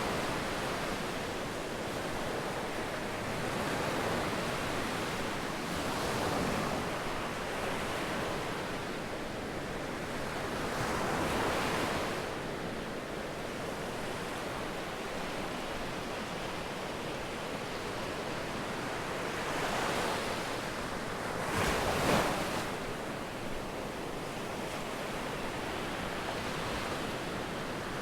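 Sea waves breaking and washing up a sandy beach, the surf swelling and fading every few seconds, with one louder break about three-quarters of the way through.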